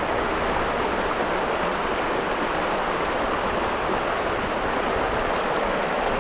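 Shallow mountain stream running over rocks: a steady, unbroken sound of running water.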